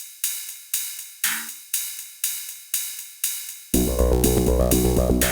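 Horror-style instrumental music. A bright hi-hat-like hit repeats about twice a second, then a little under four seconds in a deep bass and layered chords come in under the beat.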